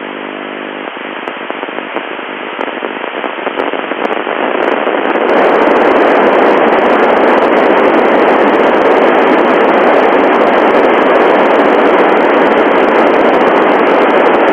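FM static (open-squelch hiss) from an Icom IC-9700 receiving the SO-121 satellite's FM downlink, with no station transmitting. A faint buzz is heard in the first second, and the hiss grows louder about five seconds in.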